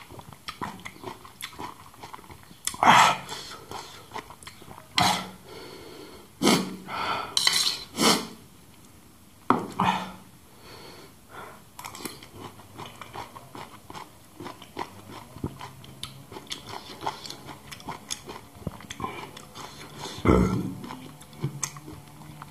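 A person eating with a metal spoon: the spoon scrapes and clinks on a banana leaf and a small steel plate, with chewing of juicy citrus pulp close to the microphone. A few louder, sudden mouth sounds come about 3, 5, 7–8, 10 and 20 seconds in.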